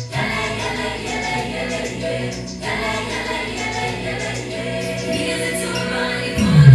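Background music with choral singing in held notes; a louder passage with heavier bass comes in near the end.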